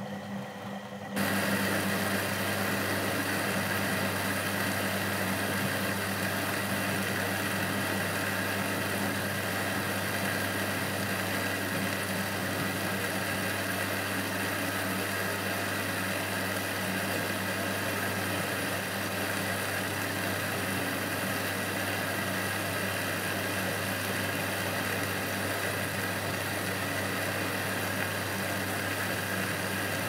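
Eudora Supernova 1002 front-loading washing machine washing a sudsy load: the drum motor runs with a steady low hum while the wet laundry tumbles. The sound sets in abruptly about a second in, after a quieter moment, then holds steady.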